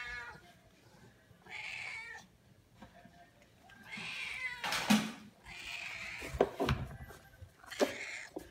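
Domestic cat meowing about four times in short calls, with a few sharp knocks in between in the second half.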